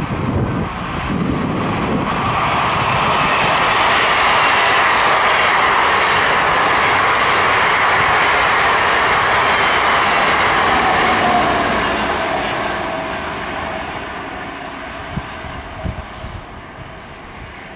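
A yellow Dutch intercity passenger train passing close at speed. A rushing noise of wheels on rail and moving air swells as it approaches, holds loud for several seconds, then fades as the train runs away. A short falling whine comes about two-thirds of the way through as it goes by.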